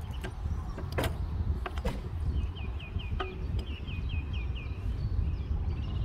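Outdoor ambience with a low steady rumble, two sharp clicks about one and two seconds in, and a bird singing a run of quick repeated high notes about two to five seconds in.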